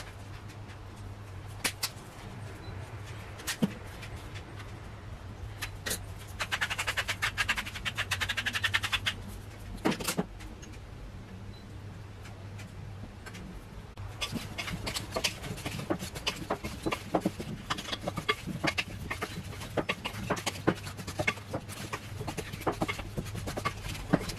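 Oiled potato wedges being tossed with a spatula in a glass bowl: a continuous run of irregular clicks and scrapes through the second half. Earlier come a few single taps and a rattle of a couple of seconds, over a steady low hum.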